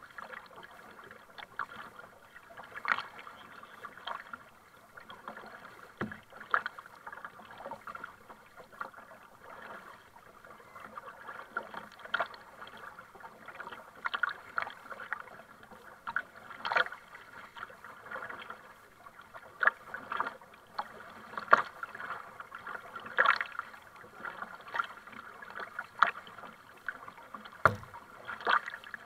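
Double-bladed kayak paddle dipping and splashing into the sea on alternate sides, a stroke every second or two, over the wash of water along the kayak.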